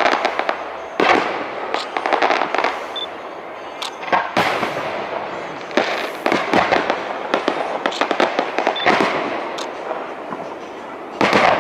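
Fireworks display: aerial shells bursting every second or two, some bangs coming in quick clusters of crackles, each fading in echo.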